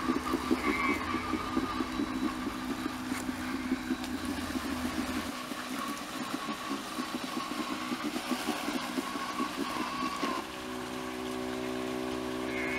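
Homemade Arduino robotic lawnmower running: a steady motor-like drone with a rapid flutter and a thin whine above it. About ten seconds in, it changes to a smoother, steadier hum.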